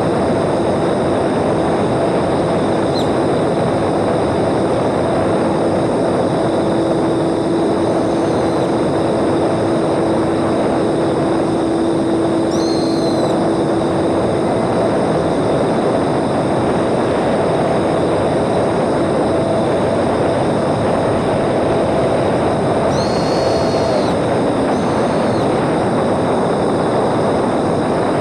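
Steady rushing noise of a small electric radio-controlled airplane in flight: propeller and airflow noise, with a steady hum that fades about halfway through. A few brief high chirps.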